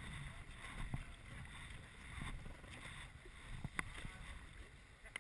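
River water rushing and splashing around an inflatable raft as paddles dip in, with a single sharp knock a little under four seconds in.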